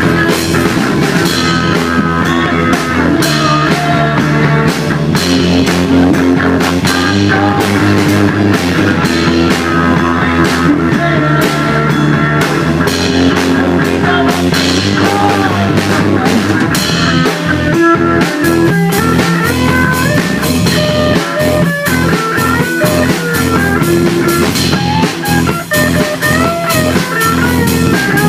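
Rock music with guitar and drum kit, played at a steady beat; in the second half a bending melody line comes to the front.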